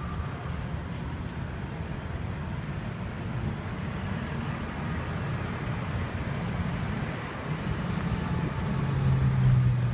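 Steady rumble of road traffic, with one vehicle's engine getting louder near the end.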